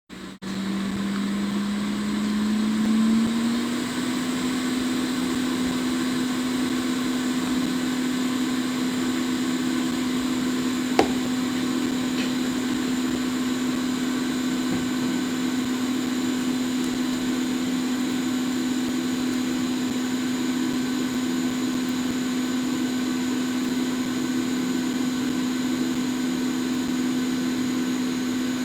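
Hot air rework station's blower running steadily, its hum rising in pitch over the first few seconds as it spins up and then holding; a single click about 11 seconds in.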